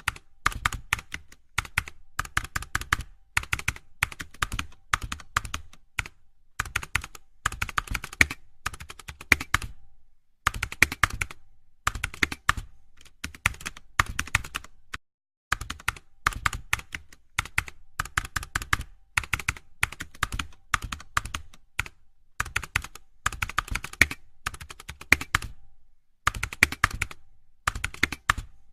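Computer keyboard being typed on: rapid key clicks in bursts of a second or so, with short pauses between them.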